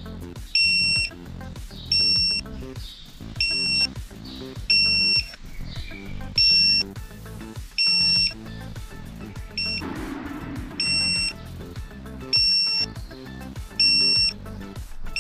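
Bahco digital torque wrench's built-in signal beeping, about ten short high beeps one every second and a half, each marking a wheel bolt brought to its target torque. Background music plays underneath.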